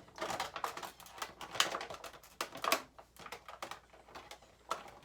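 Irregular clicking and crinkling of plastic toy packaging being handled as a figure is worked free of its zip ties.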